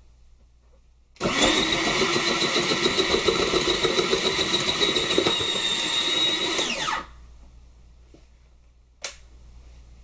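KitchenPRO electric salad maker's motor running for about six seconds as it is worked, then switched off, its whine falling as it winds down. A single sharp click follows about two seconds later.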